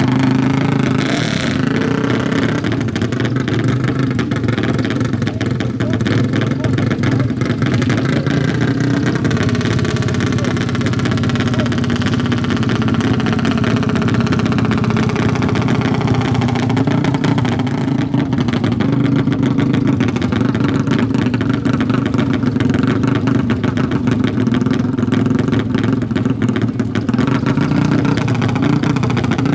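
A race quad's engine running steadily close by for a long stretch, holding a fairly even speed with no clear revs or launches.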